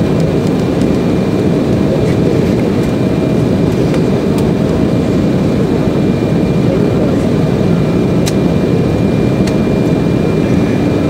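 Steady cabin noise inside an Embraer 190 airliner on approach: a dense rush of airflow and its General Electric CF34 turbofans, with a faint steady whine above it.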